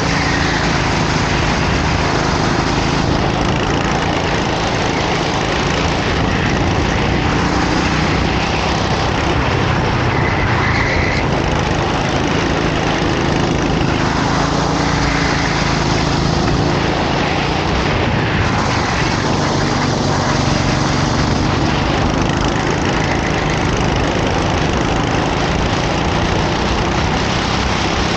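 Racing kart engine running hard at race pace, its note rising and falling.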